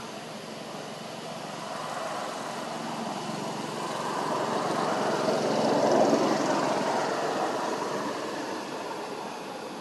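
A passing engine, its rushing drone swelling slowly to its loudest about six seconds in, then fading away.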